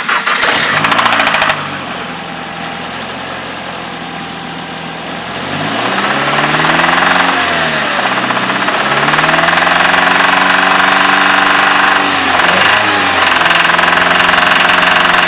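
Nissan Sentra SE-R Spec V's 2.5-litre four-cylinder engine starting with a loud burst of cranking, settling to idle, then revved up and down a few times and held at raised revs near the end. It runs with a knocking sound, an engine knock that goes with the car having no power.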